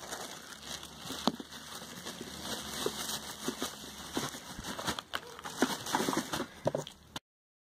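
Thin plastic bags and plastic wrapping crinkling and rustling as they are handled, with many small crackles and clicks. The sound cuts off suddenly to dead silence near the end.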